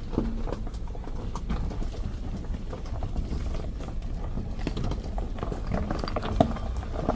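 Car driving slowly over a rough dirt and gravel track, heard from inside the cabin: a steady low rumble with irregular knocks and clatters as the tyres hit stones and bumps, the sharpest knock about six seconds in.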